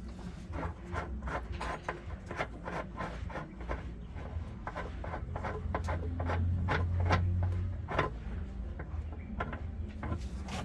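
Quick clicks and scraping of tools and panel parts being worked on during washing machine disassembly, several a second, with a low hum that swells for about two seconds past the middle.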